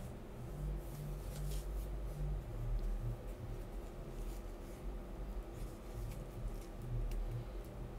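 Quiet room tone: a steady low hum with scattered faint clicks and rustles.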